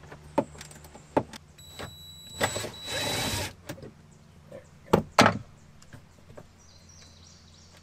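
A cordless drill-driver runs in a burst of about a second, with a motor whine, backing out the nut or bolt that holds the oil-injection tank. Before it come light clicks of hands and hardware among the hoses, and about two seconds later two sharp knocks are the loudest sounds.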